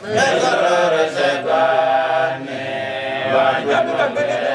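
Chanting by a voice in long held notes that waver and glide in pitch.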